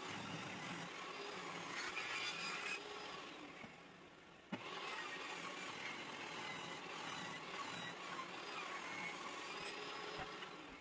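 Table saw running and cutting as a 2x6 board is ripped and resawn, a steady whirring saw noise that breaks off and restarts about halfway through.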